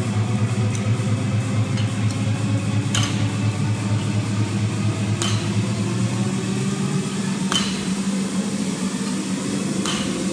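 A loaded barbell knocking on the gym floor four times, about every two and a half seconds, as clean reps are repeated, over a steady low hum.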